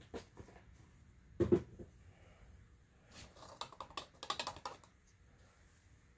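Light clicks and taps of small parts being handled, with one louder knock about a second and a half in and a quick run of clicks around four seconds.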